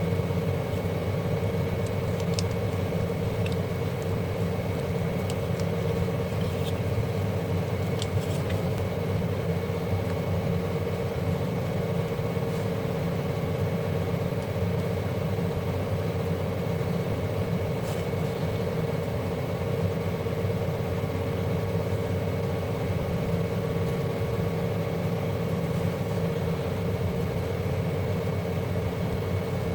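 Steady machine-like hum that does not change, with a few faint clicks in the first several seconds and one more about halfway through.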